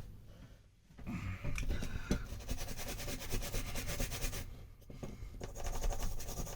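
Scrubbing the heated-grip controller's circuit board clean with isopropyl alcohol after soldering: a scratchy rubbing noise of quick repeated strokes that starts about a second in.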